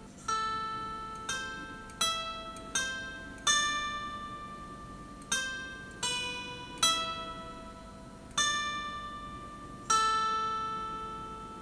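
Handmade five-string kantele, a plain wooden plank strung with guitar strings, plucked one note at a time in a slow tune: about ten notes, each left to ring and die away, the last one ringing out near the end.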